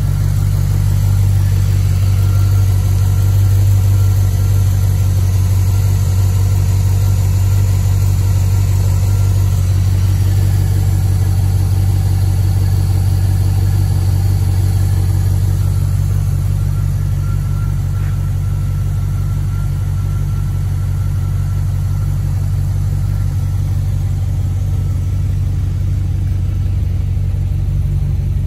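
HSV Clubsport R8's 307 kW LS2 6.0-litre V8 idling steadily on a cold start, a deep even idle that eases down a little about halfway through.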